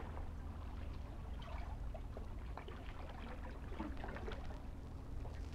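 Small waves lapping and trickling at the shore of a calm sea, over a steady low hum.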